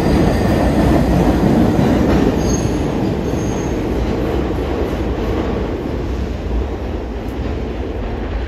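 New York City Subway train running through on the BMT Brighton Line: a loud, steady rumble of wheels on rails that gradually fades, with two brief high wheel squeals a few seconds in.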